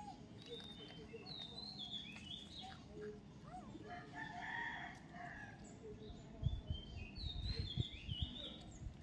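Birds calling in the background: two runs of short, falling high chirps and a longer call around the middle. Low bumps come in near the end.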